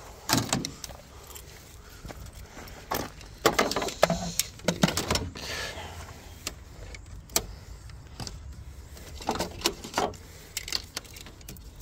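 Handling noise of jump-starter cables and their metal clamps: irregular clicks, knocks and rattles as the clamps are carried and moved about.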